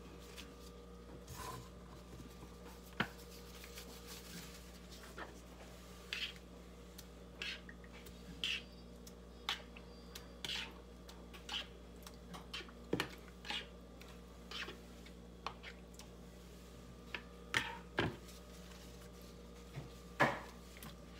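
Kitchen handling sounds from assembling a lasagna in a disposable aluminium foil pan: scattered taps, crinkles and scrapes of gloved hands, a spoon and a plastic bowl against the foil, about one a second, over a steady low hum.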